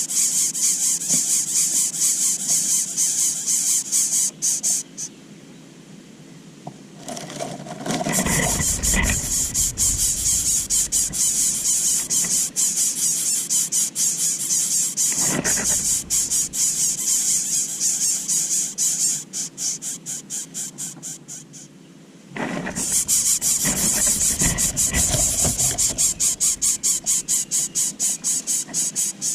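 Greater coucal nestlings giving rapid, high-pitched, pulsing begging squeals for food. The calling breaks off twice for a few seconds, and a brief lower rustle comes once or twice.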